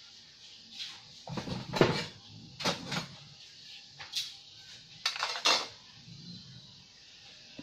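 Pots and metal utensils clinking and clattering in a string of separate knocks, the loudest about two seconds in and again around five and a half seconds in.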